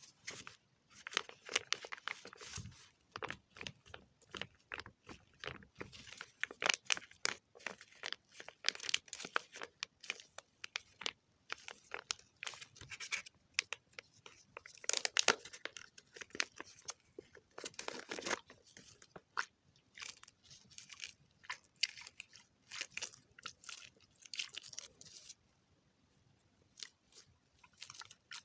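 Close-up crunching and crackling: a dense run of quick, irregular crackles with heavier clusters here and there, and a lull of about two seconds near the end.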